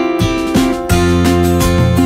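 Background music with a strummed acoustic guitar; a steady low part joins about a second in.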